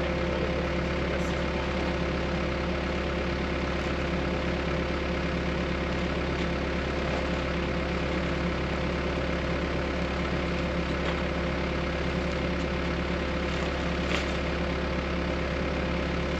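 An engine idling steadily, with a faint tick about fourteen seconds in.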